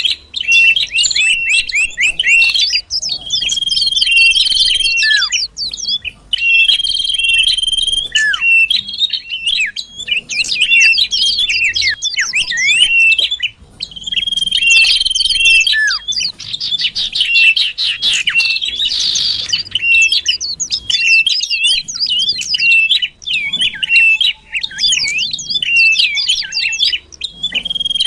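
Iora (cipoh) song used as a bird-catching lure call. It is a dense, nearly unbroken run of fast chirps and trills, with long steady whistled notes and short downward slurs that repeat.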